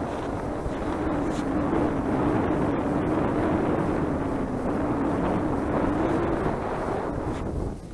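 A steady engine drone over a rushing noise, its pitch sagging slightly and recovering. It drops away just before the end.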